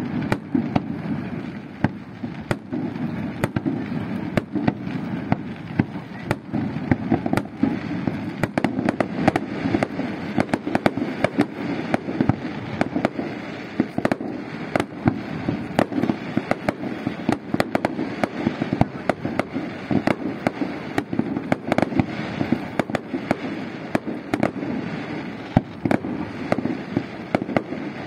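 Fireworks display: a dense, unbroken barrage of shells launching and bursting, sharp bangs coming several times a second over a continuous low rumble.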